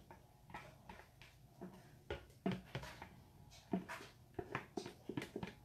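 Light, scattered clicks and knocks of kitchen utensils and containers being handled, about a dozen at irregular intervals.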